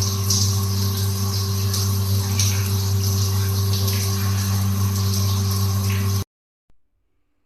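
Shower water spraying over the steady hum of a water heater's built-in DC booster pump. Both stop abruptly about six seconds in, and a faint click follows.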